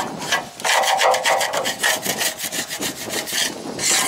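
Rapid rasping, scraping strokes, several a second, loud and rough, easing off about three and a half seconds in.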